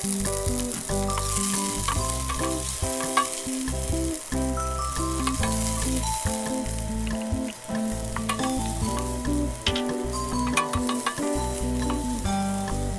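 Sliced onion and minced garlic sizzling in hot oil in a stainless steel pan, stirred with a wooden spoon, with scattered light clicks. A tune plays in the background.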